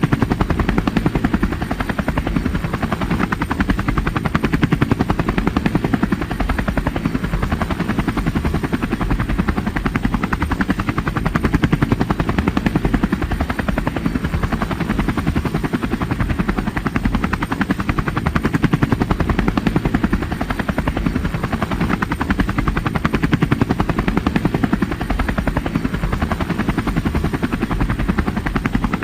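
Helicopter in flight, its rotor blades beating in a fast, even chop over the engine's steady running.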